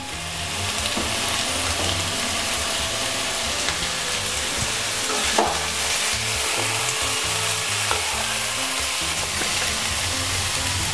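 Chopped vegetables sizzling steadily in hot oil in a kadai while a spatula stirs them, with a few knocks of the spatula against the pan about halfway through.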